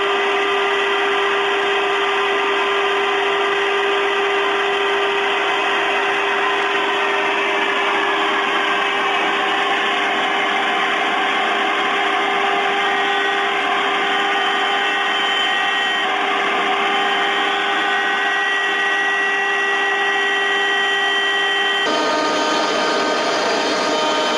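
CNC milling machine spindle running and the cutter milling a block, a steady whine over continuous cutting noise. The tone shifts around two-thirds of the way in and changes abruptly near the end.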